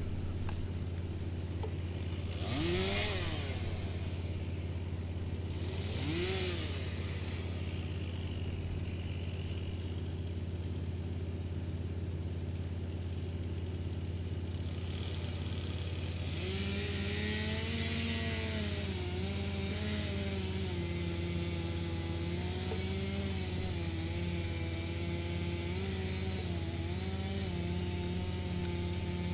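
Wood chipper engine running steadily, with two short surges of noisy shredding about three and six seconds in. From about halfway there is a longer stretch of chipping, during which the engine note drops and wavers under the load.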